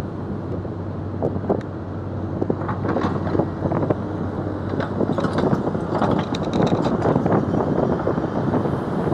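Hydraulic excavator's diesel engine running with a steady low hum, with scattered knocks and clicks throughout.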